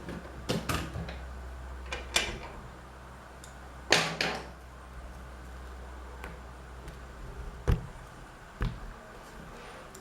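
Irregular clicks and short scrapes of small tools on a tablet's plastic case and glass during disassembly, a few each few seconds; the loudest is a brief scrape about four seconds in, with a sharp click near the end.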